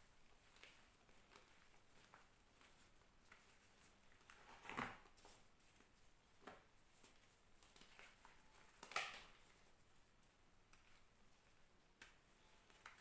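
Reformed gym chalk crunching as it is crushed, in two louder crunches about five seconds and nine seconds in, with a few fainter crackles between.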